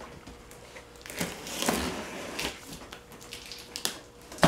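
Cardboard shipping box being opened, with cardboard and packing material crackling and crinkling, then a few sharp knocks near the end.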